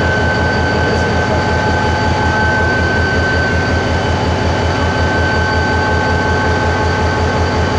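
Diesel locomotive standing and idling: a steady, rapidly pulsing low engine throb with steady high whines over it.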